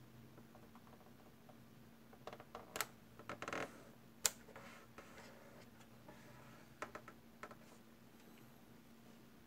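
Small clicks and brief rubbing of fingers on a plastic model fuselage while pressing Dymo tape onto it, in scattered clusters about two to four seconds in and again near seven seconds, over a faint steady low hum.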